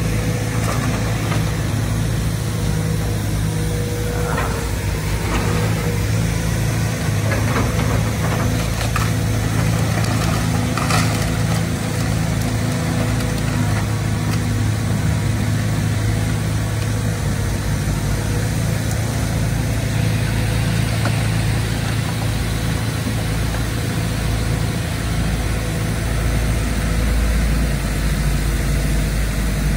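Link-Belt excavator's diesel engine running steadily as it works, with a few scattered knocks between about four and eleven seconds in.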